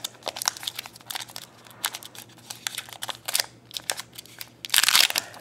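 A foil trading-card pack crinkling in the hands as it is worked open, at first as scattered light crackles, then a louder spell of crinkling near the end.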